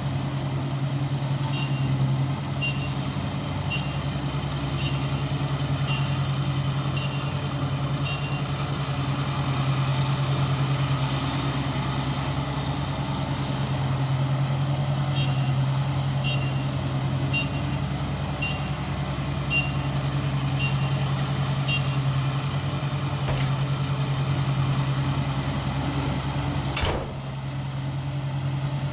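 Engine of an ISEKI 325 rice harvester running steadily with a low drone. A high warning beep sounds about once a second in two runs, typical of the machine reversing, and there is one sharp knock near the end.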